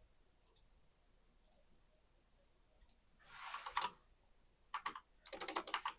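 Computer keyboard typing: quick runs of key clicks beginning about halfway through, after a few seconds of near silence.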